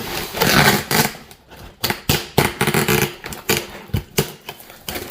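Plastic packaging being handled: a rustle for about the first second, then a run of irregular clicks and clacks as parts are pulled out and moved around.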